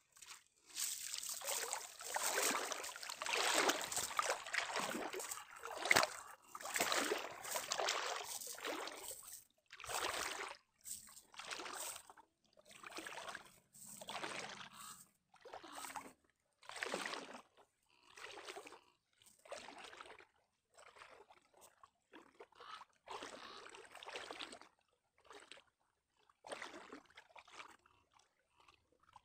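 Legs wading through knee-deep water, each stride a separate slosh and swish about a second apart, growing fainter as the wader moves away.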